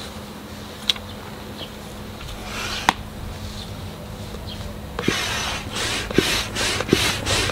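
A faint steady hum with a few scattered clicks, then about five seconds in, music with a quick, steady beat comes in.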